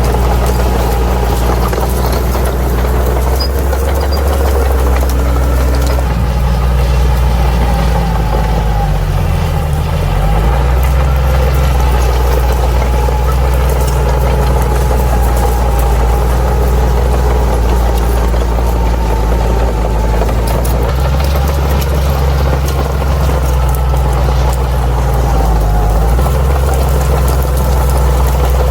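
Crawler bulldozer's diesel engine running steadily under work, its note dipping briefly and recovering about nine seconds in.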